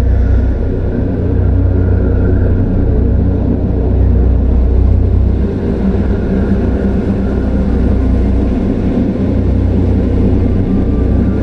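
Dark horror ambience for a haunted forest: a steady, deep rumbling drone with a faint higher hum over it.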